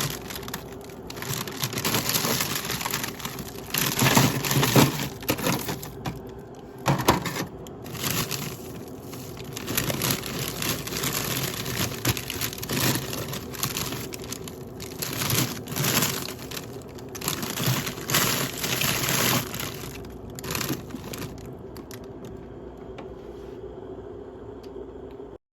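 Irregular crinkling and rustling of plastic packaging being handled, in bursts of a second or two with short pauses, over a faint steady hum.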